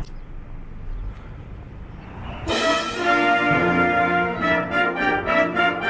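Concert band with brass playing a melody, coming in sharply about two and a half seconds in after a quieter stretch of low background noise.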